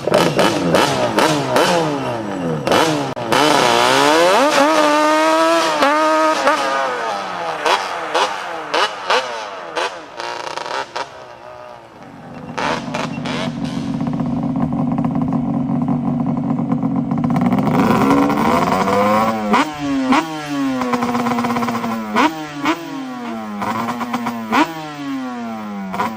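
Yamaha Banshee 350's twin-cylinder two-stroke engine revving again and again, its pitch rising and falling in quick blips. A steadier, lower-pitched stretch comes midway before the revving picks up again.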